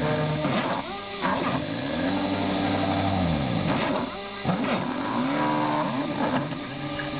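Stepper motors driving a CNC-converted Proxxon KT150 cross table, whining in tones that rise, hold and fall as the axes speed up and slow down, several times over. Under them the Proxxon BFW 40/E spindle motor runs steadily while a pointed cutter engraves letters into a wooden board.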